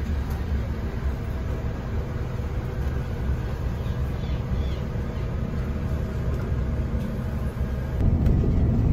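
Steady low engine and road rumble heard inside the passenger cabin of a moving intercity coach. It gets louder near the end.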